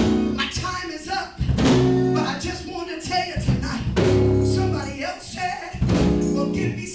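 Live gospel music played by a guitar-led band, with sustained bass notes and chords and some singing over it.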